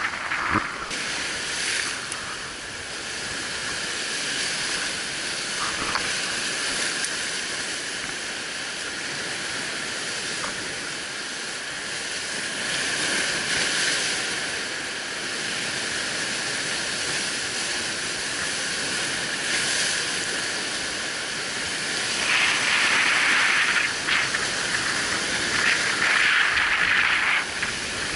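Surf breaking and foaming over shoreline rocks: a steady hiss of rushing white water, with two louder surges near the end.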